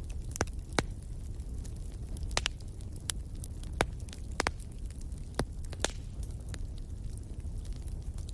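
Wood fire crackling in a fireplace: about ten sharp pops and snaps at irregular intervals over a steady low rumble of the flames.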